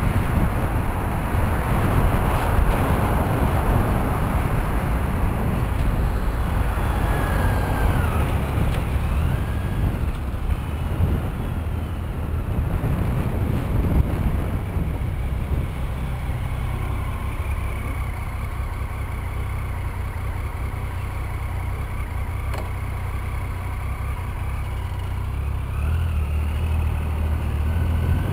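Road traffic heard from a moving bicycle: cars and other vehicles running close alongside in the next lane, over a constant low rumble of wind on the microphone. A steady low engine hum grows louder near the end.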